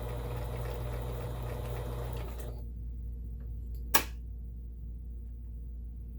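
Kenmore 17922 electronic sewing machine stitching steadily, then stopping about two and a half seconds in. A single sharp click follows about a second and a half later.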